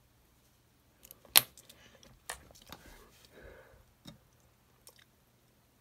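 Tool clicking and knocking against the small plastic housing of an Apple EarPods Lightning connector as it is pried at. One loud sharp snap comes about a second and a half in, then further clicks, taps and rustling handling noise.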